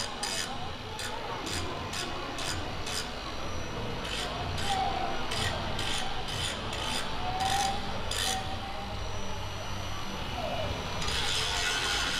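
Sharp, evenly spaced mechanical clicking, about three clicks a second, that pauses briefly around three seconds in and stops about eight seconds in. A louder rushing noise rises near the end.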